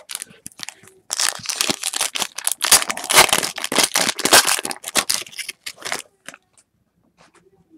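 Foil wrapper of a Topps Chrome football card pack torn open and crinkled by hand. It is a dense crackle from about a second in that stops at about six seconds.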